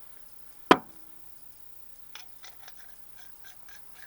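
A single sharp metallic clank about a second in, ringing briefly, followed from about two seconds in by a run of light, quick clicks: metal tools and injector parts being handled on a workbench during reassembly of a diesel injector.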